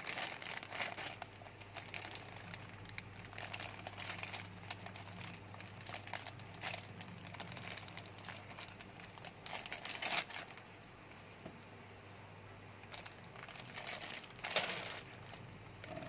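Clear plastic bag of CPU-cooler mounting brackets crinkling as it is handled, in irregular rustles with a couple of louder crackles about ten seconds in and near the end.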